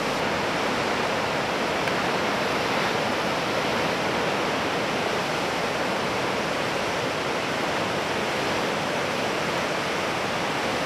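Steady wash of ocean surf breaking, with no separate events standing out.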